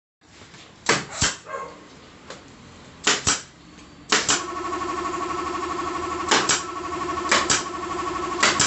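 Pneumatic nail gun firing into the wooden frame, each shot a sharp double clack, six shots spaced roughly a second or two apart. From about four seconds in a motor hums steadily underneath.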